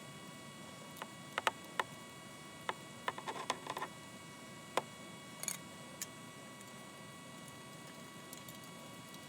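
Scattered small clicks and taps of a refrigerant can and charging hose fitting being handled and connected, with a quick run of clicks about three seconds in, over a faint steady hum.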